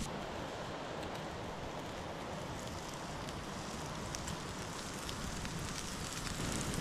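Wood campfire burning with a steak searing on the coals: a steady hiss with faint, occasional crackles.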